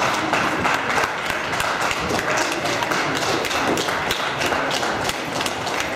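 Sparse, scattered clapping from spectators: irregular sharp claps, several a second, over a background of crowd noise.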